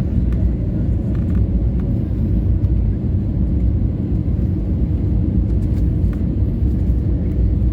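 Steady low rumble inside the cabin of an Airbus A320neo airliner on final approach, with engine and airflow noise and a faint steady hum.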